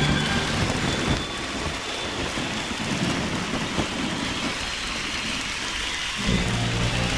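Large aerial fireworks going off: a dense crackling, rain-like hiss with low rumbling booms. Accompanying music drops out about a second in and comes back near the end.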